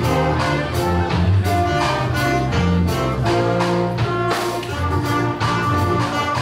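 A school band playing live: saxophones and trumpets sounding held notes over a bass line and a steady beat.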